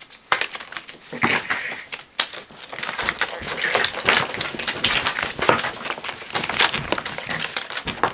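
A deck of Phase 10 playing cards being shuffled by hand: a long run of quick riffling clicks and crackling card flicks.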